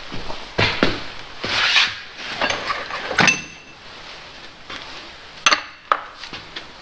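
Fabric of a work jacket rustling and rubbing close to the microphone, with sharp metallic clinks of small engine parts being handled, one about halfway through that rings briefly and two more near the end.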